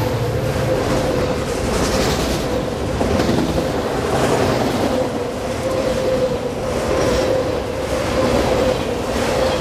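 Freight train of autorack cars rolling past at speed: a steady rumble and rush of steel wheels on rail, with a thin steady ringing tone running through it and a few faint clacks.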